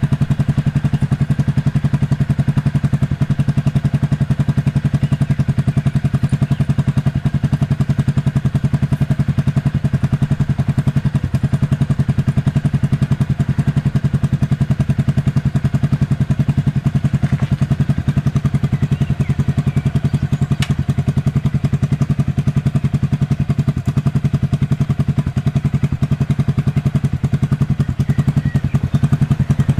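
Motorcycle engine running steadily at idle, with a fast, even exhaust beat and no revving.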